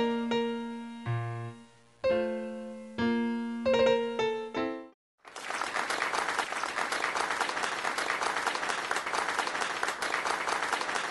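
Background piano music that stops about halfway through, followed after a brief gap by steady applause.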